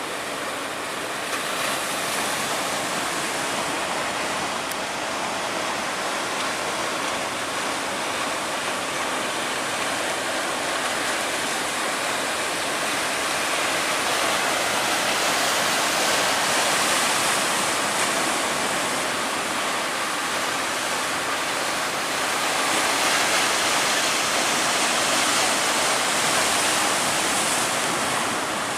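Steady rush of breaking surf and churning water, swelling a little midway and again later on.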